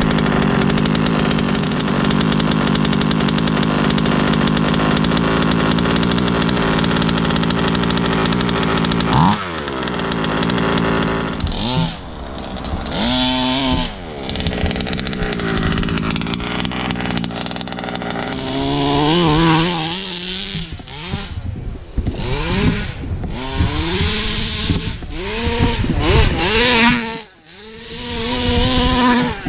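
ESP 30.5 ported two-stroke engine of an HPI Baja buggy, on the last tank of its run-in, running at a steady fast idle. About nine seconds in it revs briefly. From about eleven seconds the throttle is worked repeatedly and the engine note rises and falls as the buggy drives off.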